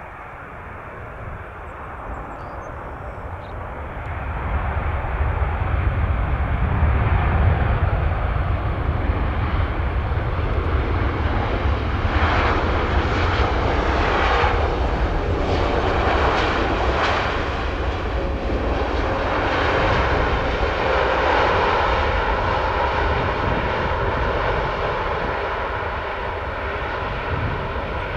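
Boeing 787-9 airliner's jet engines as it comes in to land, growing louder about four seconds in and then holding as a steady jet noise with a faint whine.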